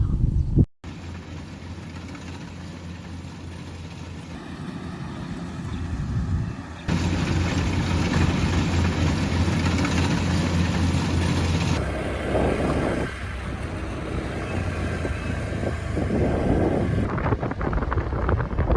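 An engine running steadily with a low hum. The sound shifts abruptly several times, at about 1, 7, 12 and 17 seconds in.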